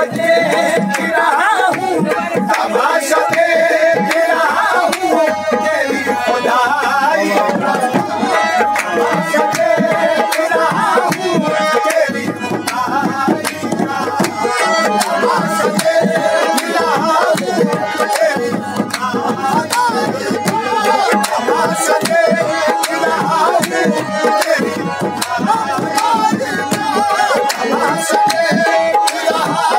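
Live qawwali music: tabla drumming under a sustained melody line, played without a break.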